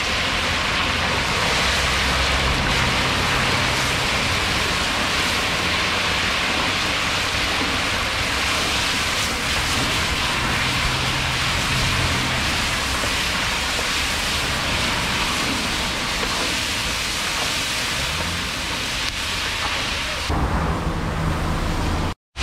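Chunks of meat sizzling in hot oil in a large cast-iron kazan over a wood fire, with the pieces stirred through the oil; a steady, loud frying hiss with a low rumble under it. The sound changes a little near the end and cuts out for a moment at the very end.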